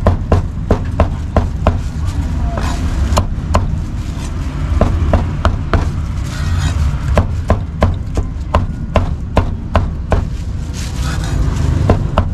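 Meat cleaver chopping cooked pork and duck on a round wooden chopping block: a run of sharp chops, two or three a second, broken by a few short pauses, over a steady low background rumble.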